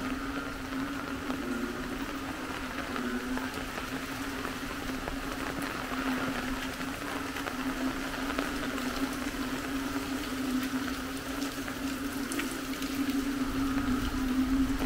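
A motor running at a steady pitch over floodwater sloshing and splashing, getting a little louder near the end.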